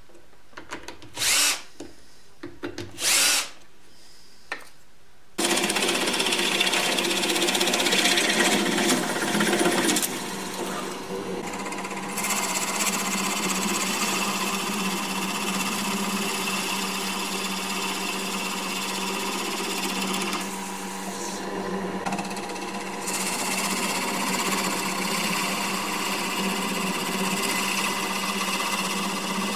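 Electric power tool working wood: three short bursts, then continuous running from about five seconds in, dropping a little in level around ten seconds in.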